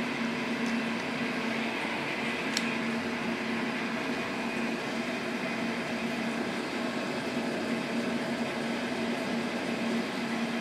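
Steady hum of a running electric motor and machine drive, with one light click about two and a half seconds in.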